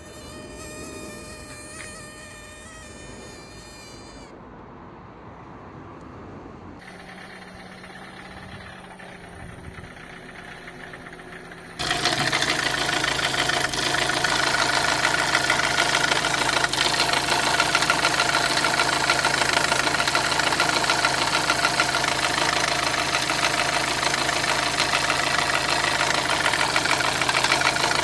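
Car engine starting: a faint whine and low hum from the car for about twelve seconds, then the engine catches suddenly and settles into a steady idle with a fine rapid ticking in it.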